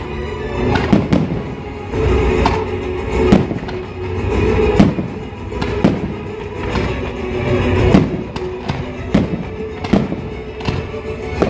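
Aerial firework shells launching and bursting in quick succession, sharp bangs about one to two a second, over a loud musical soundtrack.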